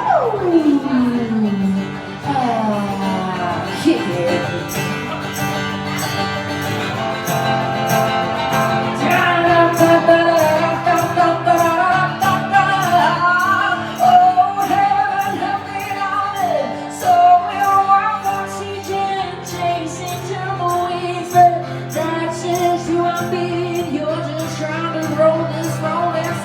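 Country band playing an instrumental break. A lead line with bending, sliding notes plays over a steady drum beat, opening with a long falling slide.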